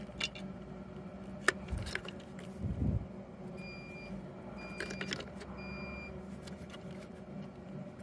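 Clicks and knocks of a wiring connector being handled and fitted at a Jeep's engine computer, with three short beeps about a second apart midway through.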